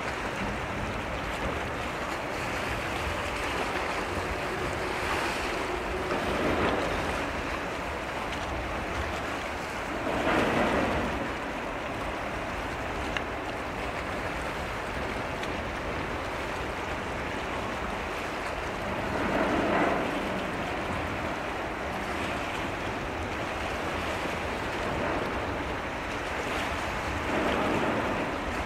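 Waves washing against the shore as a steady rush of water, swelling into a louder surge every several seconds.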